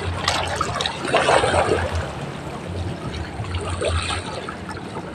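Water trickling and splashing, with a louder swell about a second in.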